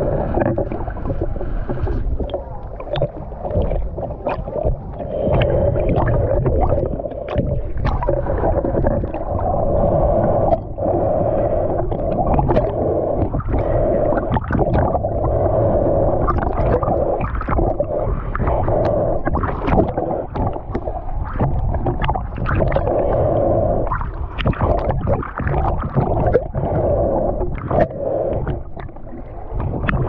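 Muffled underwater sound picked up by a GoPro Hero 9's microphone on a snorkel mask: a low rumble and gurgling, with a wavering hum that swells and fades and irregular sharp clicks and crackles throughout.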